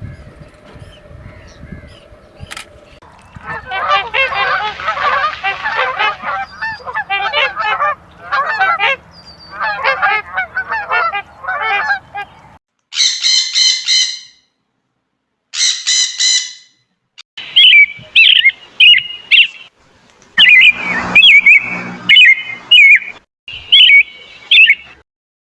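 Birds calling in several abruptly cut segments: a dense chatter of many birds for about nine seconds, two short pitched calls that stop dead, then loud repeated calls through the last third.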